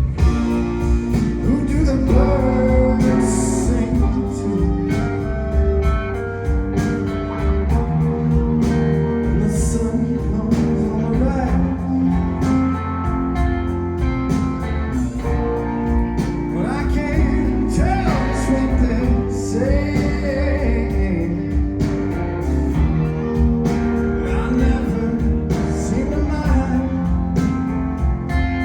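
Live band performing a song: a male voice singing over guitar, bass and drums keeping a steady beat.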